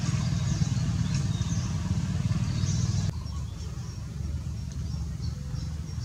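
A steady low rumble with faint, short, high-pitched bird chirps over it. The rumble drops in level about three seconds in, and the chirps come more often after that.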